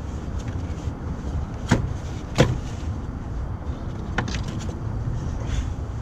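Plastic clicks and knocks from the air filter housing as the lid is held up and the old filter is pulled out: two sharp knocks close together, then a lighter click. Under them runs a steady low rumble like wind on the microphone.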